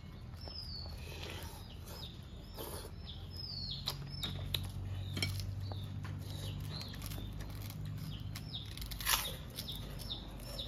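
Crunching bites of crisp crackers, with spoon and dish clinks now and then. Small birds chirp over and over throughout, in short falling chirps.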